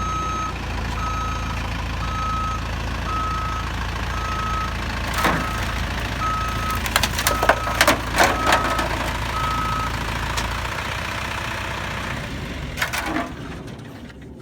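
A vehicle backs over a water heater drain pan. Its reversing alarm beeps about once a second over a low engine rumble. Sharp cracks and crunches come as the tyres roll onto the pan, loudest about seven to nine seconds in. The beeping stops about ten seconds in and the engine noise drops soon after.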